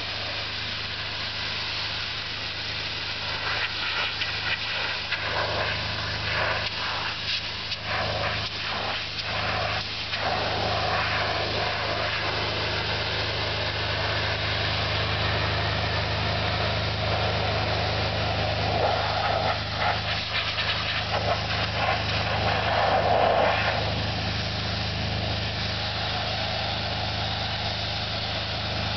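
Pressure washer's engine running steadily, with the hiss of the high-pressure spray coming and going unevenly as it is worked over a vinyl fence to strip off mold and mildew.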